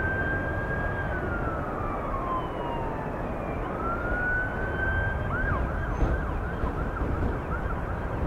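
Emergency vehicle siren in a slow wail, rising, holding and falling, then rising again and switching to a fast repeated yelp a little past halfway, over a steady background rumble.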